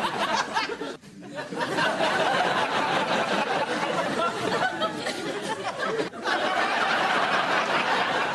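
Voices chattering and snickering with bits of laughter, without clear words, broken by short pauses about a second in and again near six seconds.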